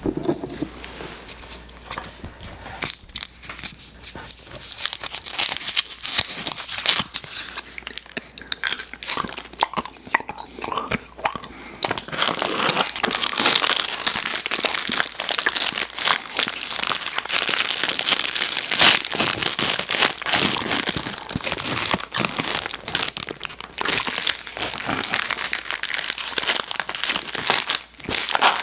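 Plastic candy wrappers crinkling and tearing open, a dense run of crackles that grows busier about twelve seconds in.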